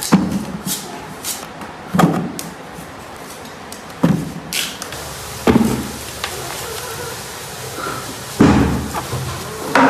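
A series of heavy, dull thuds, about six in all, unevenly spaced one and a half to three seconds apart. They are the knocks of heavy objects being set down or dropped.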